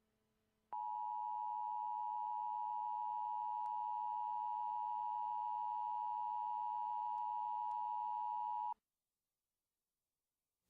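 Emergency Alert System attention signal: a steady electronic tone that starts about a second in, holds unchanged for about eight seconds, and cuts off abruptly.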